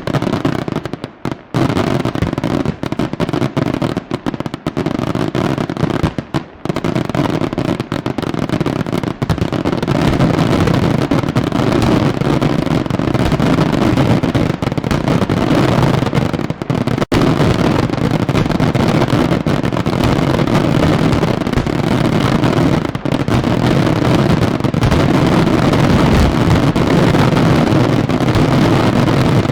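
Fireworks exploding. Rapid separate bangs with short gaps at first, then from about eight seconds in a dense, unbroken barrage of explosions that builds louder toward the end.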